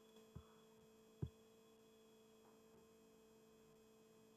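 Near silence: a faint steady hum, with two soft, short low thumps about half a second and a little over a second in.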